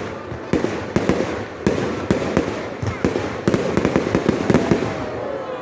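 Fireworks going off in a rapid, irregular series of sharp bangs, about two a second.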